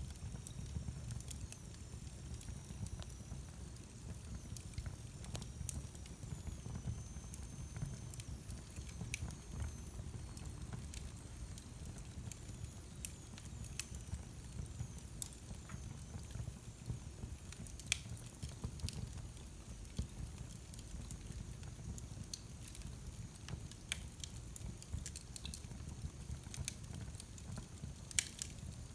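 Wood fire in a fireplace crackling, with a steady low rumble of the flames and frequent irregular sharp pops and snaps.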